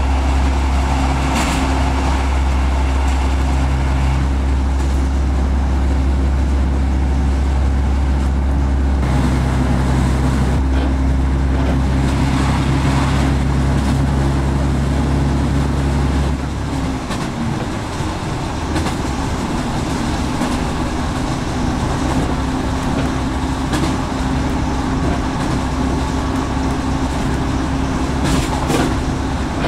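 Train running, heard from inside the carriage: a steady low drone with the rumble of wheels on track. The drone drops away a little over halfway through, leaving a rougher rumble, with a few sharp clicks near the start and the end.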